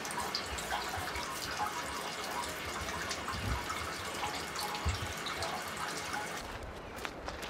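Water trickling and dripping, an even splashing hiss with small droplet clicks and a couple of soft low thumps, easing a little near the end.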